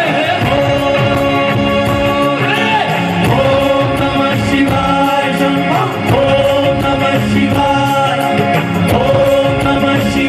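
Live Hindi devotional song (bhajan): male voices singing through the stage PA over a band with drums, in long held notes that come in phrases of about two seconds, each opening with a short upward slide.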